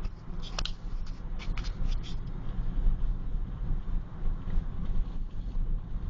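Car driving on snowy streets: a steady low rumble of engine and tyres, with a few short sharp clicks between about half a second and two seconds in.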